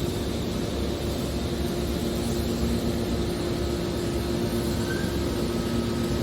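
Hydraulic scrap metal baler running, its power unit giving a steady hum of two held tones over an even mechanical noise.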